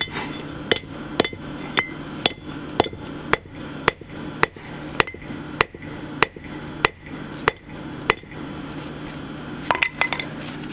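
Hand hammer striking a railroad spike on an anvil, flattening it in a steady rhythm of about two blows a second. The hammering stops about eight seconds in, followed by a few lighter metallic clinks.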